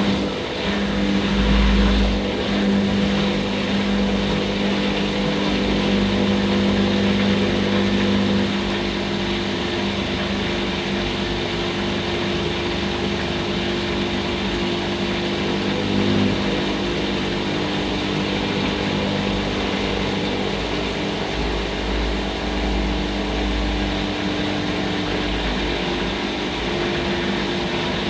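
Hoover Nextra HNL662 washing machine running steadily, its motor tones shifting pitch a couple of times, with low thumps from the drum now and then.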